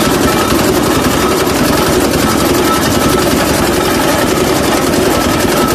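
Powered sugarcane juice machine running steadily with a rapid, even mechanical rattle as its grooved steel rollers and drive gear crush a cane stalk.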